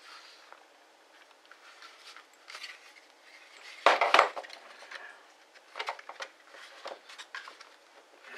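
Plastic housing parts of a Ridgid X2 cordless drill clicking and knocking as they are handled and fitted back together, with a louder cluster of knocks about four seconds in.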